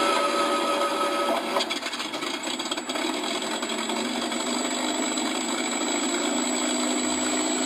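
P-40 Warhawk engine sound effect cutting in abruptly and running steadily, with a thin high whine joining about two and a half seconds in.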